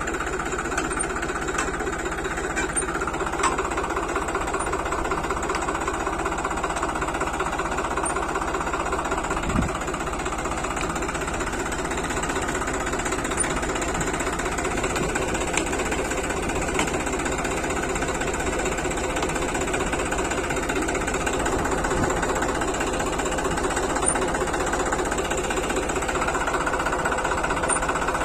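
Tractor's diesel engine running steadily with a fast, even knock, driving the PTO shaft that winds a rope to pull a submersible pump's pipe up out of a borewell.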